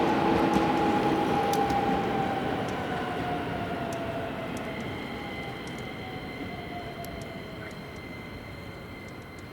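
Electric commuter train moving away, its running noise fading steadily, with a whine that slowly falls in pitch. Faint steady high tones set in about halfway through.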